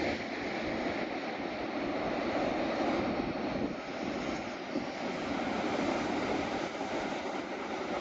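Rough sea surf breaking and washing up the beach: a steady rush of noise that swells and eases gently.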